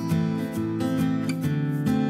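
Background music: a strummed acoustic guitar playing a steady rhythm of chords.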